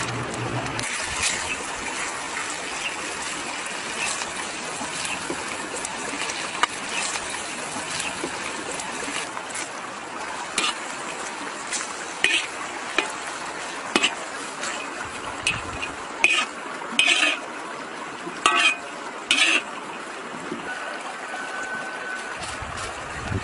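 Pork belly frying in hot oil in a large wok, with a steady sizzle. From about halfway on, a spatula scrapes and clanks against the wok several times as the food is stir-fried.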